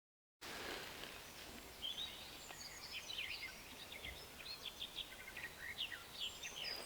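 Faint woodland birdsong: several birds giving short chirps and whistles over a soft background hiss.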